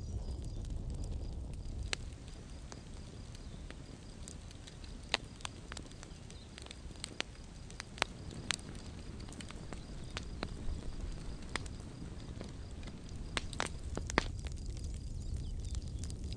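Campfire burning, its wood giving irregular sharp crackles and pops over a low steady rumble.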